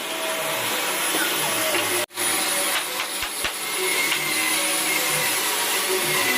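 Electric woodworking power tool running steadily with a dense whirring noise, broken by an abrupt momentary cut about two seconds in.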